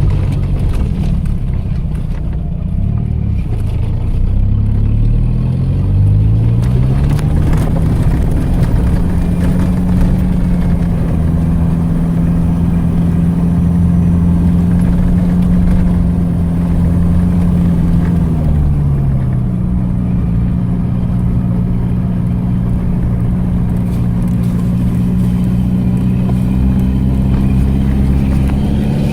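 ARO off-road vehicle's engine running under load, its pitch rising about five to seven seconds in, holding steady, then dropping about nineteen seconds in and holding again.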